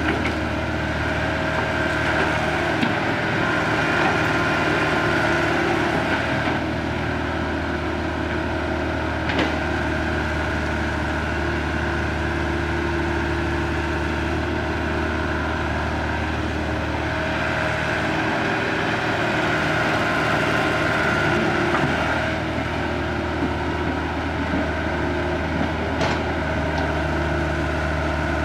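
Caterpillar hydraulic crawler excavator's diesel engine running steadily while it digs and loads soil, working harder in two stretches, a few seconds in and again past the middle. A couple of short sharp knocks cut through.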